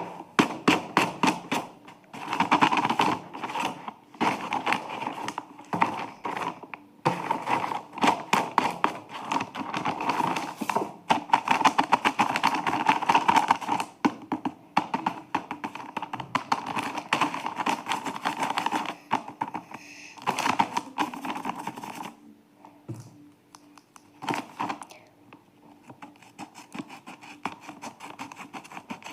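Paper and plastic wrapping crinkling and rustling as a handmade blind bag is handled and opened, a dense stream of crackles that grows quieter and more scattered in the last few seconds.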